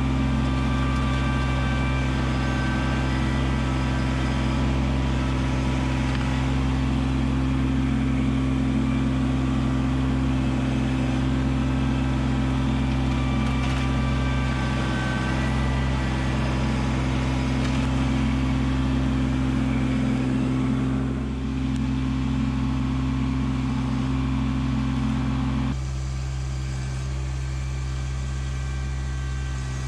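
Kubota LX2610 compact tractor's three-cylinder diesel engine running steadily as it works the front-loader grapple into the ground at a stump. The note dips briefly about two-thirds of the way through and changes abruptly near the end.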